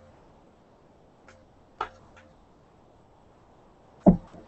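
Quiet room tone with a few faint light clicks as an acrylic roller and a vinyl texture sheet are handled on a glass tabletop.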